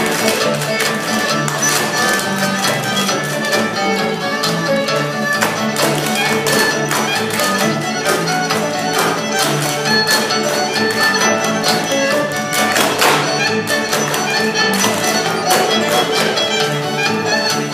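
Old-time string band music led by a fiddle with upright bass, overlaid by fast, continuous clicking of clog dancers' flat metal shoe taps striking a wooden stage.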